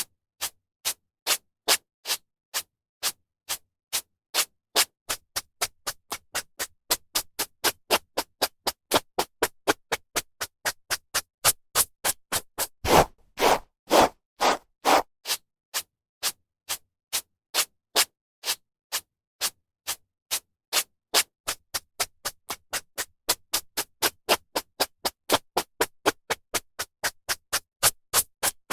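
A hairbrush drawn through hair in short, quick strokes, about two to three a second, with a few longer, louder strokes around the middle.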